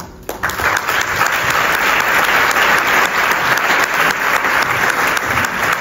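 Audience applauding, beginning just after the speaker's last words and holding as a steady, dense clapping.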